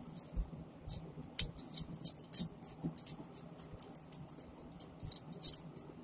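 A fish being scaled: a blade scraping against the scales in short, quick, irregular strokes.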